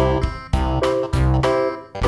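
Instrumental background music: keyboard notes struck about twice a second in a steady beat, each fading before the next.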